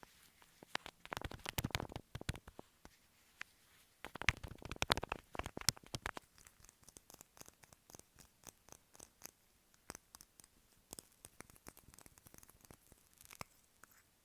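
Sticky tape handled close to the microphone: two dense bursts of crackling, as of tape being peeled, then scattered light clicks and taps.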